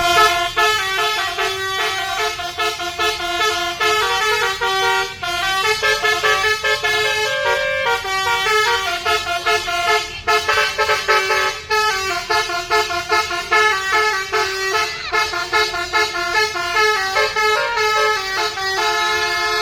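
A bus's basuri "telolet" musical horn playing a quick melody of short stepped notes, with a few brief breaks.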